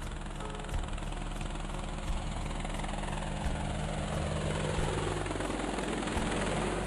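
Helicopter sound effect: the steady chopping and engine whine of a helicopter's rotor in flight, accompanying an animated helicopter.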